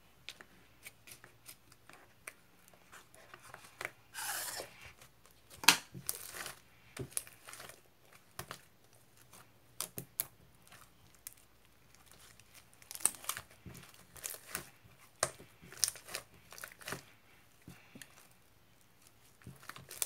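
Irregular crinkling and tearing sounds mixed with sharp clicks and taps, coming in clusters with short pauses between.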